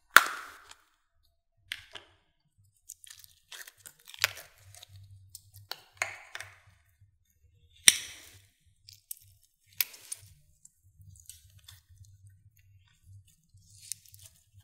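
Clear slime packed with foam beads and soap cubes being handled and squeezed: soft squishing and crackling broken by a handful of sharp pops, the loudest just after the start as the plastic tub is opened and the slime pulled free.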